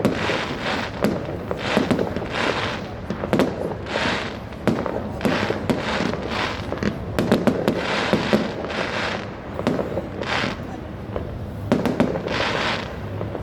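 Fireworks going off in quick succession: a dense run of bangs and crackling bursts, one or two a second, with no let-up.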